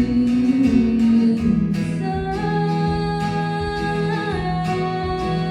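Song accompaniment: acoustic guitar strumming under long held notes.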